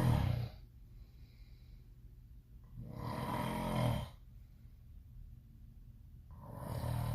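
A sleeping person snoring loudly with a buzzing, pitched rattle: one snore tails off just after the start, another comes about three seconds in and lasts about a second and a half, and a third begins near the end.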